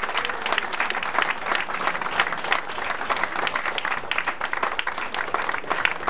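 A roomful of people applauding: many hands clapping together, steady throughout.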